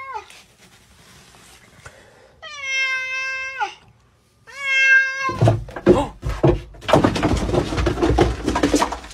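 Domestic cat meowing: the tail of one call, then two level, drawn-out meows of about a second each. These are followed by several seconds of loud scuffling and knocks, louder than the meows.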